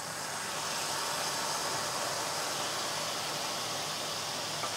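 Pork shoulder steak sizzling in hot oil in a frying pan, a steady hiss that grows a little louder in the first second.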